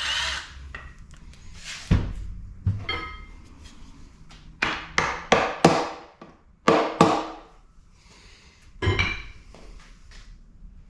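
Sharp metallic knocks and clinks, about ten of them spaced irregularly, some ringing briefly, from tools and parts being handled during the teardown of a Honda K20 engine's bottom end. A short burst of a power tool is heard right at the start.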